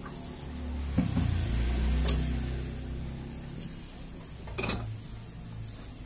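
Stainless-steel pot of water handled on a gas stove, with a low rumble and two metal knocks about one and two seconds in. Near the end comes a sharp click as the gas burner is lit.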